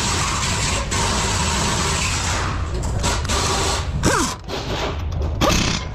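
A pneumatic impact wrench runs on the front driveshaft's axle nut at the wheel hub. It runs steadily at first, then in short starts and stops, and its motor winds down twice near the end.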